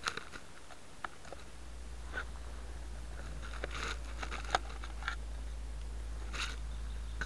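Faint, scattered small clicks and rustles of grass against a quadcopter's camera lying on the ground, over a low steady rumble on the microphone that sets in about a second and a half in.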